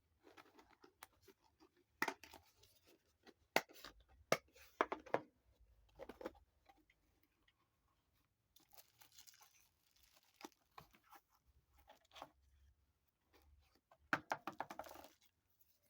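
Packaging being handled and opened: irregular rustling and tearing of wrapping, with sharp clicks and taps, in a few short bursts.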